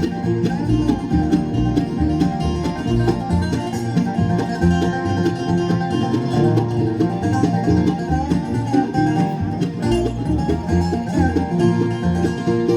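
Bluegrass band playing an instrumental break between sung verses, banjo and guitar to the fore.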